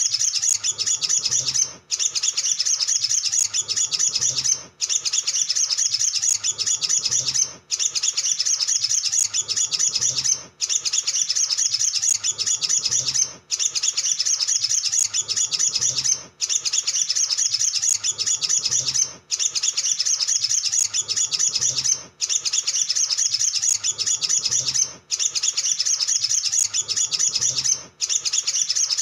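Olive-backed sunbird singing a fast, dense run of high chirps and twitters, in stretches of about three seconds broken by short, evenly spaced pauses.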